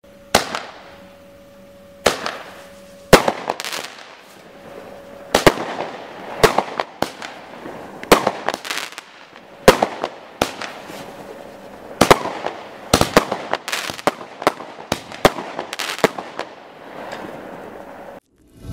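Fireworks cake (PyroRebels Geisha 1787 Sandstorm) firing shot after shot: sharp bangs at irregular intervals, sometimes several a second, each with a short noisy tail. The firing stops shortly before the end.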